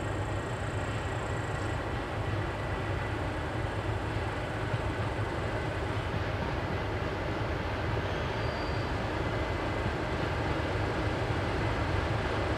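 TEM18 diesel shunting locomotives running: a steady diesel engine sound with a thin high whine above it, growing slightly louder toward the end.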